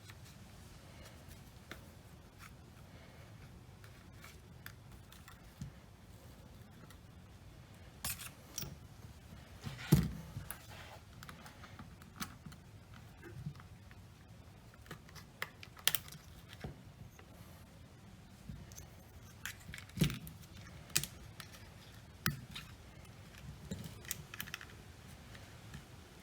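Scattered small clicks and taps of a phone and small repair tools being handled during a phone battery repair, with two sharper knocks about ten and twenty seconds in.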